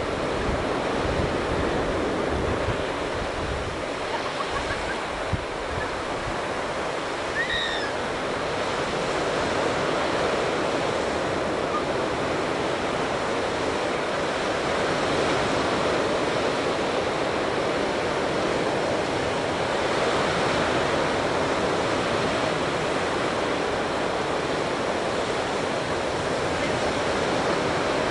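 Ocean surf breaking on a sandy beach, heard from above as a steady rushing wash, with wind buffeting the microphone in the first few seconds.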